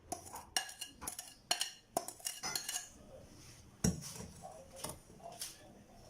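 Kitchen utensils clinking and knocking against a bowl or pot: a string of irregular taps and scrapes, with one heavier knock about four seconds in.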